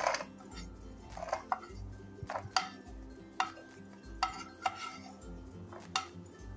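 A metal spoon scraping and knocking against a pan about ten times, one or two strokes a second, as roasted cashews are scooped out of hot ghee.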